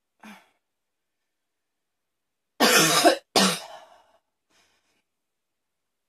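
A woman coughing: two loud coughs back to back about two and a half seconds in, the second trailing off, after a faint breath near the start.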